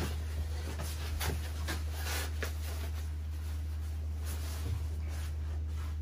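Faint clicks and scratchy handling noises as the wires are pulled off a combi boiler's plastic low-pressure cut-off switch and the switch is unscrewed, over a steady low hum.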